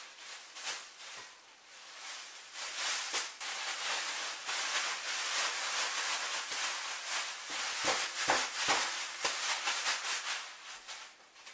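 Plastic bag rustling and crinkling as flour-dusted chicken legs are shaken inside it to coat them. The rustling starts about two seconds in, with a few dull knocks from the chicken pieces around eight seconds in.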